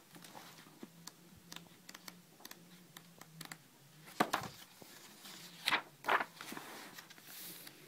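Sketchbook pages being turned by hand: paper rustling and flicking in a run of small clicks, with three louder page flips about four seconds in and twice around six seconds.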